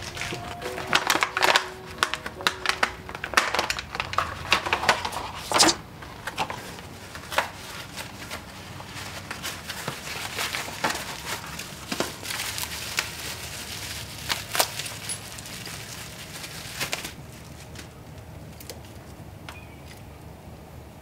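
Protective packing wrap crinkling and crackling as it is pulled off a new mountain bike's fork, in quick dense crackles for the first few seconds, then sparser, stopping a few seconds before the end. Background music plays underneath.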